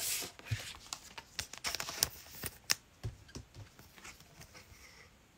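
Football trading cards being handled and flipped through: a run of quick clicks and short rustles for about three seconds, then fainter and sparser.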